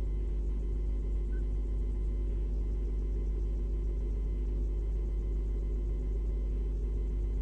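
Steady low electrical hum at mains frequency with its even overtones, unchanging throughout; no animal calls.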